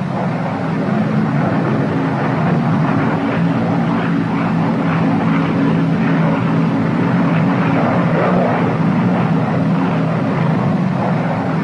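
Steady drone of a Northrop P-61 Black Widow's twin Pratt & Whitney R-2800 radial piston engines in level cruise: a constant low hum with a rushing noise above it.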